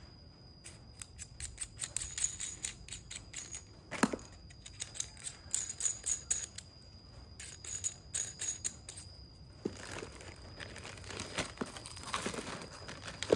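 Handling noise of a laser sight being turned over in the hands: many small clicks and taps, with one louder knock about four seconds in, then plastic bag wrapping crinkling near the end. A faint steady high tone sits underneath.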